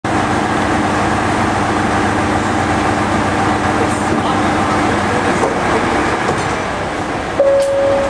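JR Shikoku 2600 series diesel railcar standing at the platform, its engines idling with a steady rumble and hum. About seven seconds in there is a sudden clunk followed by a short steady tone.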